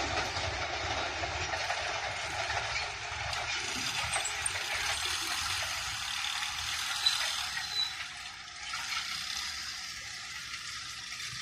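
Passenger train moving away along the track, its wheel-on-rail noise fading into a steady distant hiss.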